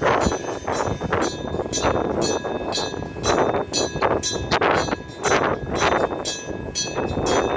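Electric-bell (denshō-type) level-crossing alarm ringing: a rapid, even clanging of about three strikes a second, the bell's ringing tones carrying on between strikes. It is the warning that a train is approaching the crossing.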